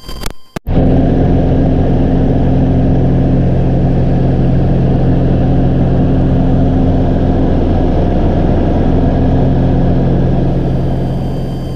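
Cabin drone of a Cessna 421C's twin geared, turbocharged piston engines and propellers in flight. It cuts in suddenly after a couple of clicks, holds steady with a low hum of several pitches, and fades out near the end.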